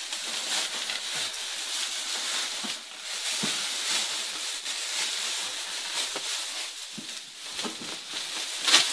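Plastic sheeting and fiberglass insulation rustling and crackling as they are pulled and torn down from between ceiling joists, with a sharper crackle near the end.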